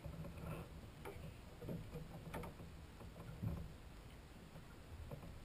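A few scattered knocks and bumps on a small wooden hydroplane's hull as a person climbs down into its cockpit, over a low, uneven rumble.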